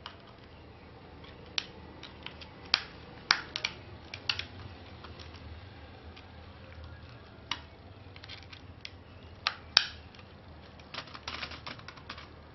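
Plastic keycaps being pressed and snapped onto a computer keyboard: scattered sharp clicks, then a quick run of clicks near the end.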